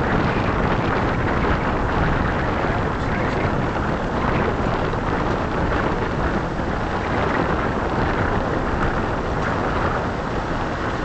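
Steady wind noise buffeting the microphone of a vehicle driving along a dirt road, over the low rumble of its tyres and engine.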